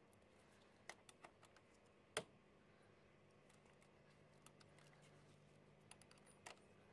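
Faint, irregular metallic clicks of a car battery's negative cable terminal being fitted back onto its post and its bolt tightened with a small wrench, with one louder click about two seconds in.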